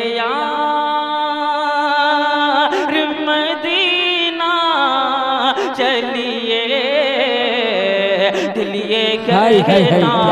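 A man singing a naat in long, drawn-out melismatic notes, his pitch sliding and wavering, over a steady low drone.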